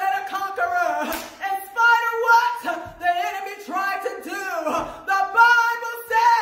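A woman singing solo, with long held notes that slide between pitches.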